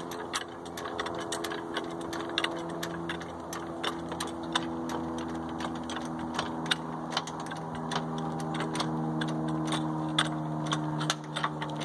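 Floor jack being pumped to lift a car: irregular metallic clicks and knocks from the jack's handle and lifting mechanism, over a steady low hum.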